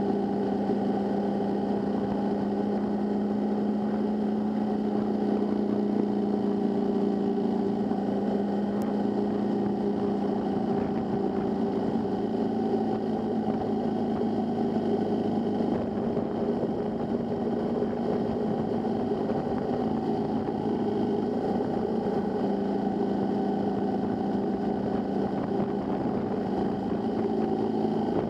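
Motorcycle engine running steadily at cruising speed, with road and wind noise, picked up by a camera mounted on the bike.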